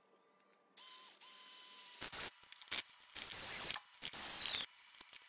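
Cordless drill-driver running: a steadier run about a second in, then four short bursts driving screws into plywood, its motor whine dipping in pitch as it loads up.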